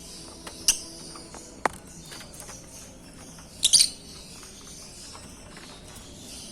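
African lovebirds chirping: a steady background of high chatter, broken by a few loud, sharp shrill calls, once about a second in and in a quick cluster near the middle.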